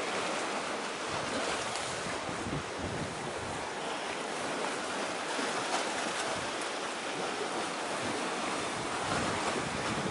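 Steady rushing noise of wind and sea waves, with the wind partly on the microphone. No engine or horn note stands out.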